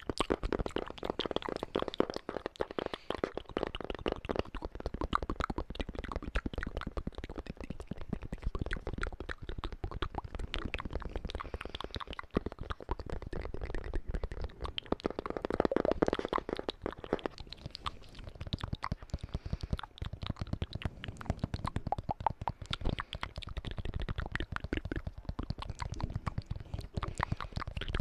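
ASMR mouth sounds mixed with tapping: a dense, rapid run of clicks and smacks that goes on throughout.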